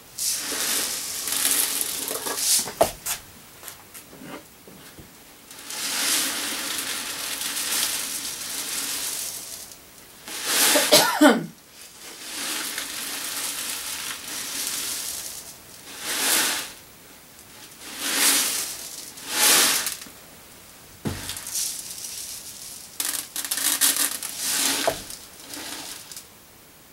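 Lye (sodium hydroxide) crystals poured from a plastic jug into a foam cup: a hissing rattle of falling granules that starts and stops several times as the pour is topped up.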